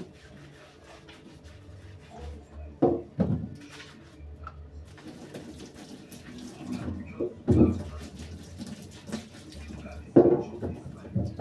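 Tap water running into a stainless steel sink as carrots are rinsed by hand, with a few loud knocks as the carrots are handled and set down, at about three seconds, halfway through and near the end.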